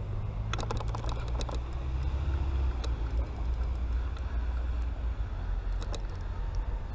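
Light, irregular clicks of a spinning rod and reel being handled, in clusters about a second in, around three seconds and near the end, over a steady low rumble.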